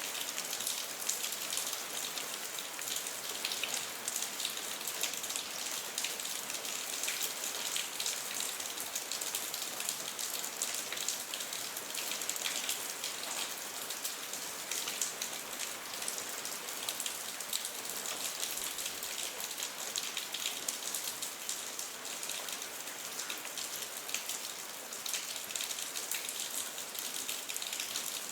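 Steady rain falling: an even hiss of countless fine drop ticks that holds level throughout.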